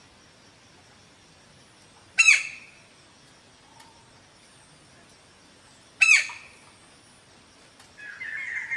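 Two loud, sharp calls of a white-bellied woodpecker, each a quick downward-sweeping shriek, about four seconds apart. A faint high hiss sits underneath, and a steady buzzing trill starts near the end.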